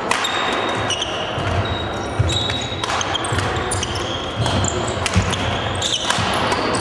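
Badminton rally: repeated sharp cracks of rackets striking the shuttlecock, mixed with short high squeaks of court shoes on a wooden floor, over the hum of a large hall.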